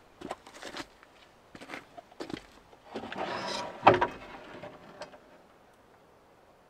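A large wooden sheet handled on a workbench: scattered knocks and clatters, a scrape as it slides along about three seconds in, and a loud knock just before four seconds as it is lifted.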